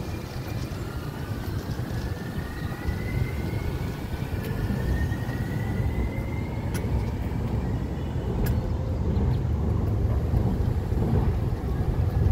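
Wind buffeting the microphone as a steady low rumble. A faint whine rises slowly in pitch over the first several seconds, and two sharp clicks come later.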